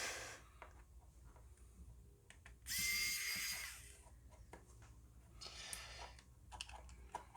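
Aerosol electronic contact cleaner sprayed onto a circuit board in short hissing bursts: a brief one at the start, a louder one about three seconds in lasting about a second, and a fainter one around six seconds, with small clicks between.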